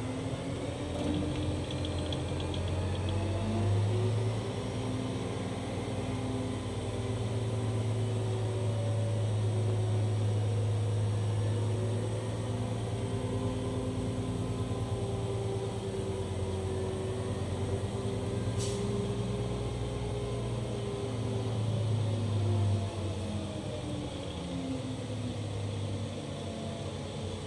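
Liebherr LTM 1120-4.1 mobile crane's diesel engine, heard from the operator's cab, revving up from idle to about 1,150 rpm a few seconds in and holding there while the superstructure slews round to 0 degrees, then dropping back toward idle near the end. A single sharp click comes about two-thirds of the way through.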